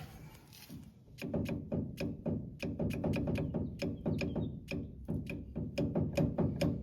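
Rapid, regular metallic knocking, about three or four knocks a second, as the rear axle shaft of a 2007 Ford Ranger is rocked in and out to check its end play. The play feels like a lot, with more on one side than the other.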